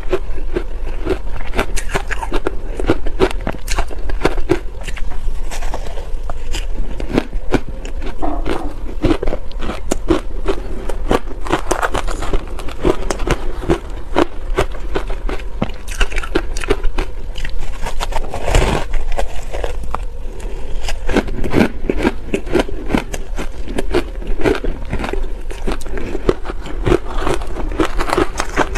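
Close-miked crunching and chewing of soft shaved ice coated in matcha powder, a dense run of crisp crackles, mixed with a spoon scraping and scooping ice in a plastic bowl.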